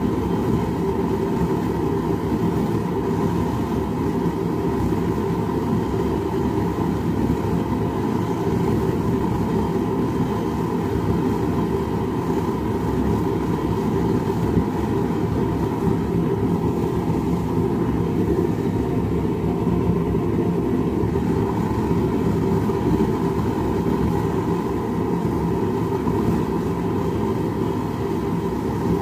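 Small propane forge with a top-mounted burner running with a steady rushing roar while a knife blade heats inside it toward non-magnetic temperature before the oil quench.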